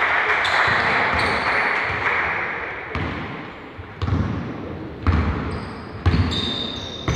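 Basketball dribbled on a wooden gym floor, bouncing about once a second in the second half, each bounce echoing in the hall.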